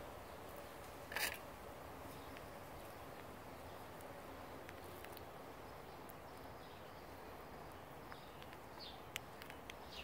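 Faint outdoor background hiss with a brief high-pitched sound about a second in; near the end, a few small sharp clicks as a blue-tongued skink bites and munches on pieces of hard-boiled egg.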